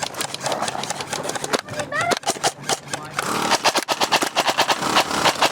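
Airsoft guns firing: scattered cracks, then a steady rapid rattle of about six to eight shots a second from about three seconds in. A brief shout is heard near the middle.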